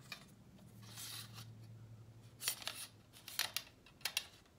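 Telescoping aluminium tripod legs of a telescope being slid out and their plastic leg locks worked: a short sliding rasp about a second in, then a series of sharp clicks and clacks.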